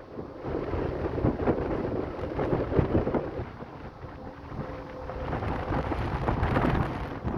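Wind buffeting the microphone in uneven gusts, a rumbling noise that swells and drops every second or so.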